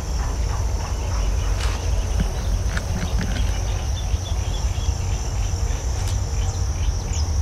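Outdoor field ambience: insects trilling steadily at a high pitch, with scattered short bird chirps over a constant low rumble.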